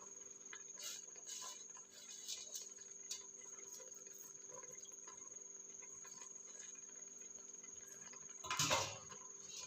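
Faint light clinks and rustles of fried onions being spread over the layered biryani rice in the pot, with a louder brief rustle near the end, over a steady high-pitched whine.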